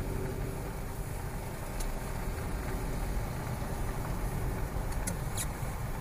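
Steady engine and road noise inside a car's cabin as it drives slowly in traffic, with a few faint ticks about two seconds in and again near the end.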